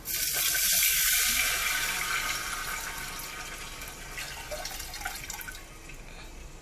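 Mutton stock poured from a bowl into a steel pot of hot oil and fried spices, splashing and sizzling; the hiss starts suddenly, is loudest in the first two seconds, then dies down.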